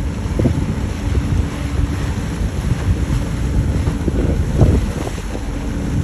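Wind buffeting the microphone aboard a Maldivian fishing dhoni at sea, a loud uneven low rumble with gusts, over a faint steady hum.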